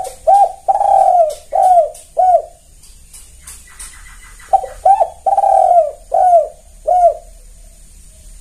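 Spotted dove (tekukur) cooing: two phrases of five notes each, two short coos, one long drawn-out coo, then two shorter arched coos, with a pause of about two seconds between the phrases.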